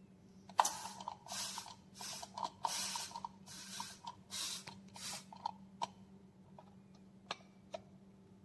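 Trigger oil sprayer bottle misting oil in about seven quick sprays, each a short hiss, followed by a few light plastic clicks near the end.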